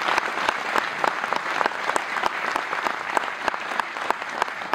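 Audience applauding, many hands clapping in a steady round of applause that thins slightly near the end.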